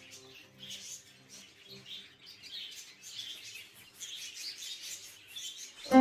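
Caged budgerigars chirping and chattering, a steady stream of short high calls. Loud piano music comes in just at the end.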